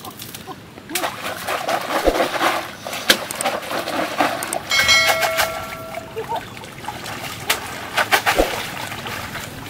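Water splashing and sloshing as a woven basket is dipped and shaken in a shallow muddy river, with sharp clicks and knocks. A steady ringing tone sounds for about a second and a half near the middle.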